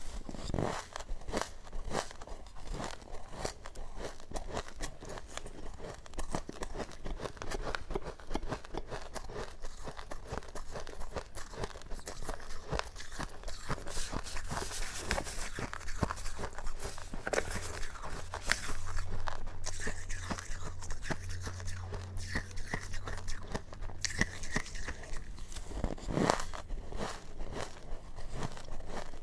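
Close-miked crunching of powdery freezer frost being bitten and chewed, a dense, irregular run of small crisp crunches.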